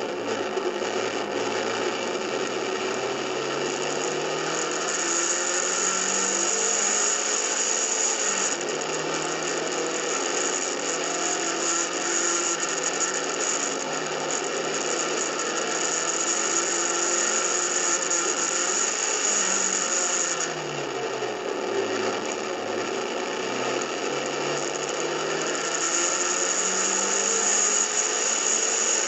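Onboard sound of a Formula Junior single-seater race car at speed. The engine note climbs steadily in long pulls and drops away as the car brakes for corners, once just after the start and again about two-thirds through, with a steady high hiss over it.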